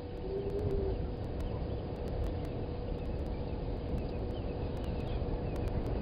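Outdoor bush ambience: a steady low rumble with a thin steady hum, and faint high bird chirps scattered through it, mostly in the second half.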